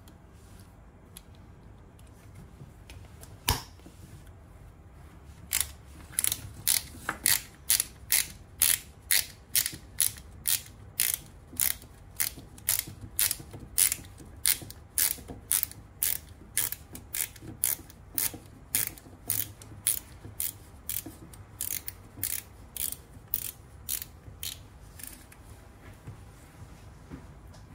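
Ratcheting dial on a Fenix HM65R-DT headlamp strap, turned by hand. It gives one sharp click, then a steady run of clicks about twice a second for some twenty seconds, growing weaker near the end.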